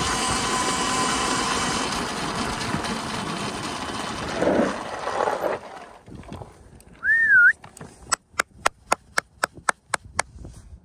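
Volcon Grunt electric motorcycle running with a faint steady motor whine under wind and tyre noise as it slows to a stop. Then, about seven seconds in, a short wavering whistle, followed by a quick run of about ten sharp clicks, roughly four a second, calling the dog.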